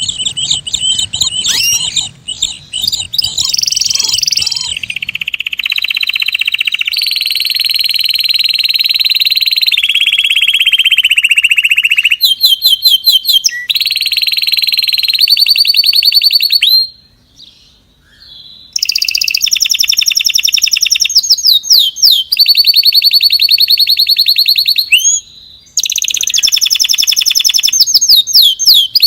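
A songbird singing a loud, continuous song of long rapid trills and repeated sweeping notes, high-pitched, with one short break a little past halfway.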